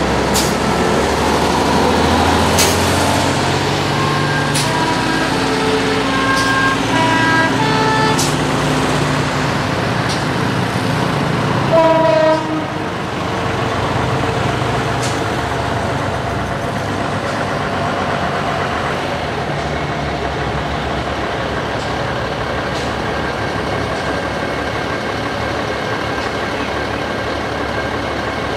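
Vintage buses driving slowly past one after another, their engines running. About twelve seconds in, a short horn toot, the loudest moment.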